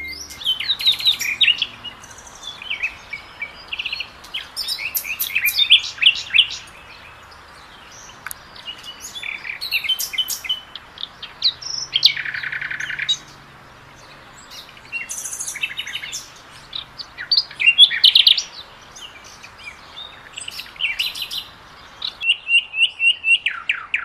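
Common nightingale singing: a string of varied phrases of clear whistles, sharp clicks and fast runs of repeated notes, with short pauses between them. A buzzy phrase comes about halfway through, and a fast run of repeated notes near the end.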